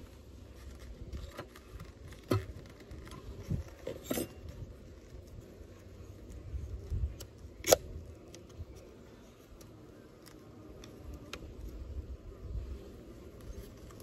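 Scattered sharp wooden clicks and knocks of Layens hive frames being handled and set back into the hive box, the loudest a little past halfway, over a low steady rumble.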